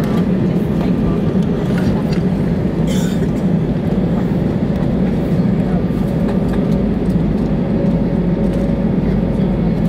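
Airbus A320 cabin noise with the engines running at idle: a steady, even low rumble of engine and air-conditioning sound, with a brief faint clink about three seconds in.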